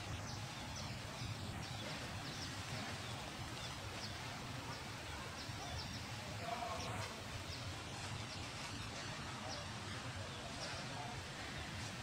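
Outdoor ambience: a steady hiss with many short, faint high chirps scattered throughout.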